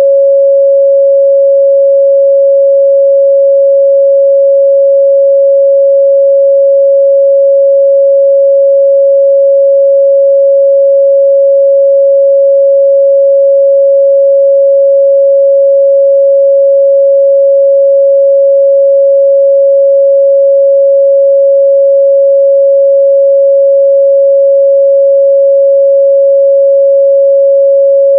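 A steady 553 Hz sine-wave test tone, one pure pitch held at a constant level.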